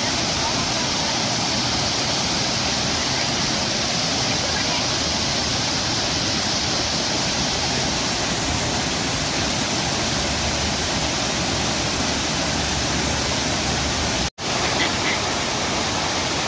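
A large waterfall: falling water making a steady, even rush, cut off for a split second about fourteen seconds in.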